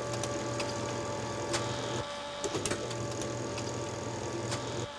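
A steady machine-like whirr and hum with scattered clicks, dipping briefly about two seconds in and again near the end.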